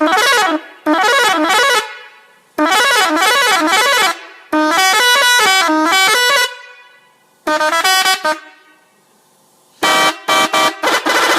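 Six-trumpet 'telolet' air horn playing its loud multi-tone tune in several bursts of a second or two, the notes stepping up and down, with short pauses between; near the end it plays a run of quick short notes.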